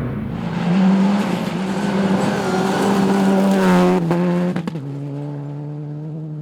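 Rally car engine under hard throttle on gravel, with a rushing hiss of tyres and thrown gravel over the engine note. Near four seconds the revs climb, a sharp crack follows, and the engine then runs on at a steadier, lower pitch as it draws away.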